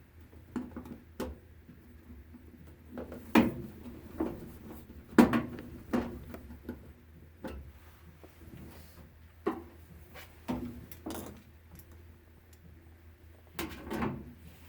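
Irregular knocks and clatters of hands working with tools and parts on a washing machine, loudest about three and five seconds in and again near the end.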